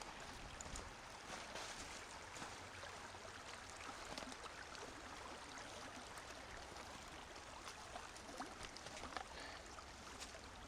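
Creek water running steadily, with faint scattered ticks over it.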